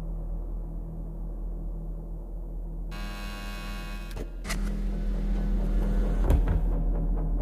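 Steady low electrical mains hum, with a harsh buzzing tone for about a second some three seconds in and two sharp clicks later on.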